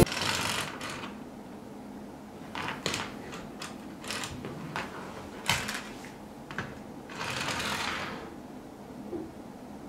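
A Bengal cat playing with a small furry cat toy on a wooden floor: scattered light taps and clicks of toy and paws, with two longer rustling scrapes, one at the start and one about three-quarters of the way through.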